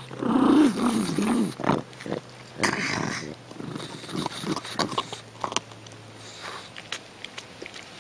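A pug eating raw pumpkin flesh with its face pressed into the pumpkin: a throaty, wavering grunting noise in the first second or so, a noisy snuffle about three seconds in, and irregular short crunching clicks of its bites and chewing.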